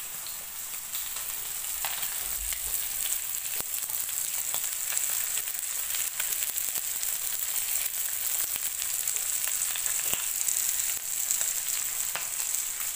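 Fish steaks shallow-frying in oil on a tawa: a steady sizzle with many small crackles. The fish is nearly cooked through.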